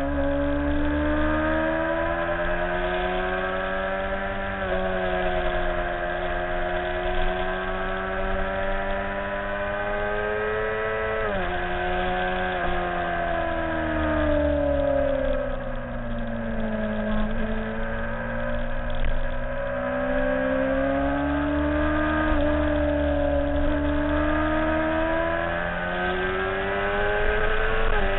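Motorcycle engine at speed on track, heard from onboard: revs climb steadily through the gears, with sudden drops in pitch at upshifts about 11 and 22 seconds in and again near the end. Between about 12 and 17 seconds the engine eases off to a lower pitch before pulling hard again.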